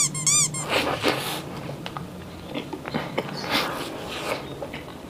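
Close-miked biting and chewing of soft, spongy red velvet sandwich cake with cream filling: soft moist smears and small mouth clicks. A short twinkling chime plays at the very start, and a faint steady hum lies underneath.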